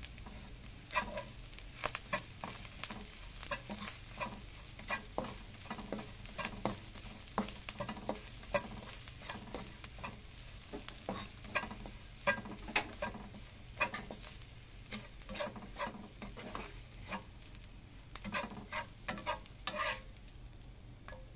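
Plastic spatula stir-frying chopped dried shrimp in a nonstick wok: irregular scrapes and taps against the pan over a faint steady sizzle.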